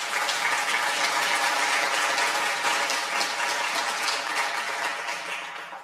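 Audience applauding, a dense patter of many hands clapping that holds steady and fades out near the end.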